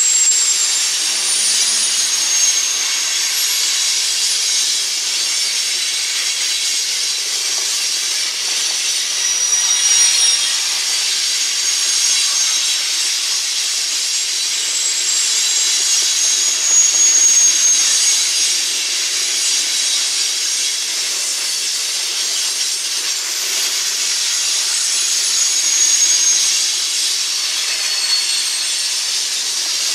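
Freight train tank cars rolling past close by: a steady high hiss of steel wheels on the rails, swelling a little now and then, with thin high squeals from the wheels coming and going several times.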